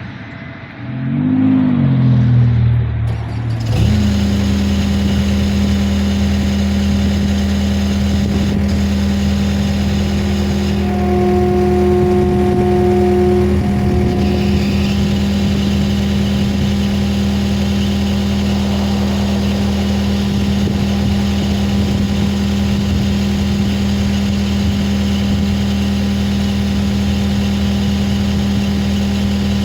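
Skid steer engine coming up to speed over the first few seconds, then running steadily, with a brief higher whine partway through.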